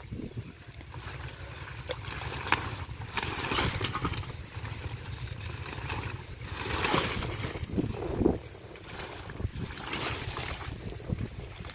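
Muddy water splashing and squelching in irregular surges as hands dig through shallow mud and pull up water hyacinth plants, with leaves and stems rustling. A steady low rumble runs underneath.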